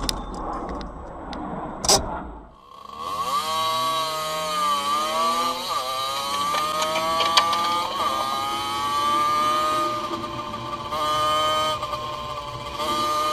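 A short sharp knock about two seconds in. Then a motorcycle engine runs, its revs dipping and climbing before settling into a steady high-pitched drone.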